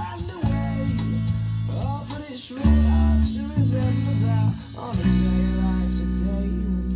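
Indie rock song: strummed guitars over bass and drums, with a man singing.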